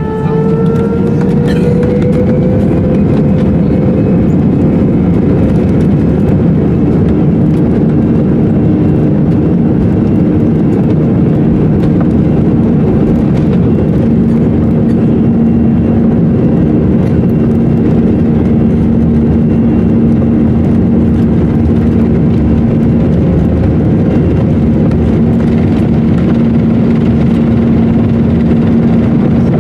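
Airbus A319 jet engines at takeoff thrust, heard inside the cabin: a whine rising over the first few seconds as they spool up, then a loud, steady rush with a low hum through the takeoff roll and liftoff.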